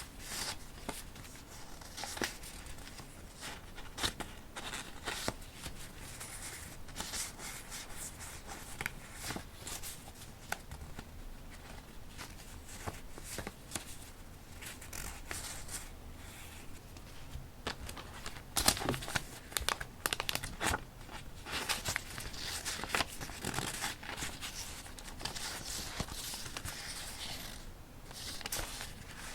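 Paper being handled close to the microphone: rustling, crinkling and tearing, with scattered sharp crackles. The loudest run of crackling comes about two-thirds of the way through.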